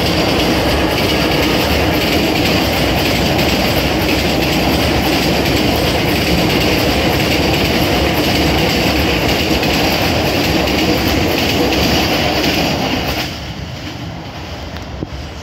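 Passenger coaches of a train rolling past close by, loud and steady on the rails; the sound drops sharply about 13 seconds in as the last coach goes by and the train moves away.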